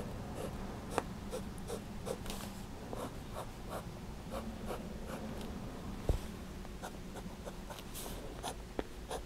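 A Sailor Pro Gear Slim fountain pen's 21-karat gold medium-fine nib scratching across paper in short strokes, two or three a second. A sharper tick comes about six seconds in.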